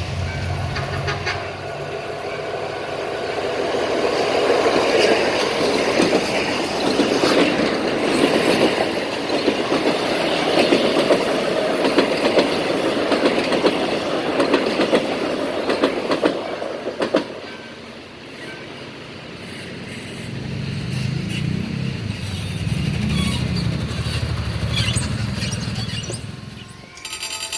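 Train passing close by, wheels clattering over rail joints in a dense run of clicks. The clatter fades about two-thirds of the way through and gives way to a lower, steady drone.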